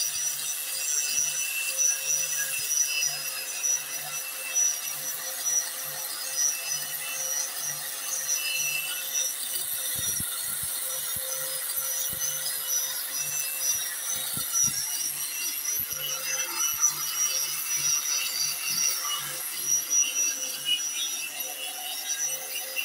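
Lure duplicating machine's rotary cutter running, carving a copy of a fishing lure: a steady high-pitched whine with grinding and rubbing, and a regular low pulse about twice a second.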